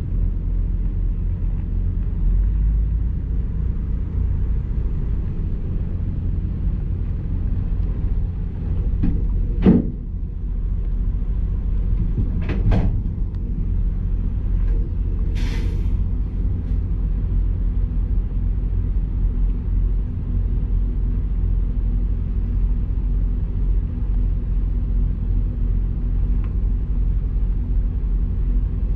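Semi-truck diesel engine running steadily with a low rumble, with a couple of short knocks and a brief hiss about halfway through.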